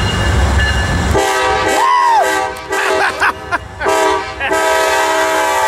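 Train horn, a multi-tone air horn, sounding a series of blasts of varying length with short gaps, starting about a second in after a low engine rumble. A sliding tone rises and falls over the first blast.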